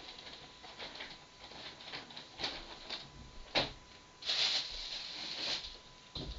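Scattered light clicks, taps and rustles of small things being handled, with a longer, louder rustle about four seconds in. A faint steady high tone sits underneath.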